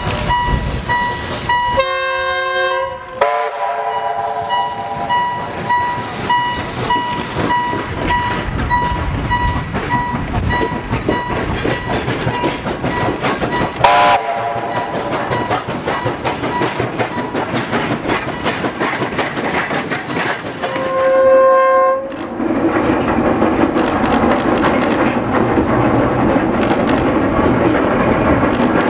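SY-class 2-8-2 steam locomotive working a passenger train over a level crossing: its steam whistle blows for about a second near the start, gives a short toot in the middle and another blast about three-quarters through, over the engine's exhaust beats and the level-crossing alarm beeping over and over. In the last few seconds the train is heard as a steady rush of running noise.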